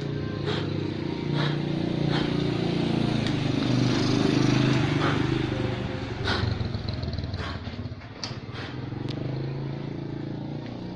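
Small motorcycle engine running, swelling to a peak about four to five seconds in and then easing off, with scattered sharp metallic clicks and knocks.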